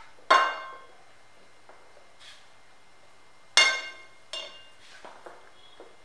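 Glass mixing bowl struck by a measuring cup and spatula while flour is added: two loud ringing clinks, the first just after the start and the second a little past halfway, a softer clink right after it, then a few soft knocks near the end.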